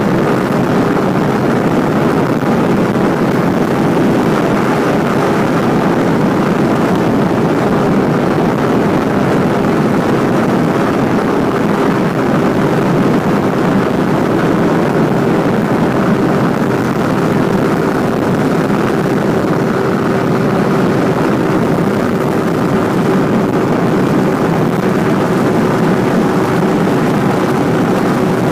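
A motorcycle cruising at a steady speed on the open road, its engine a faint even hum under a constant rush of wind over the rider's-eye microphone.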